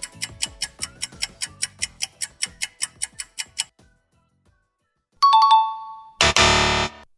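Stock sound effects played one after another: a rapid run of clicky pitched notes, about five a second, then a two-note falling ding-dong doorbell chime, followed by a loud, harsh burst lasting just under a second.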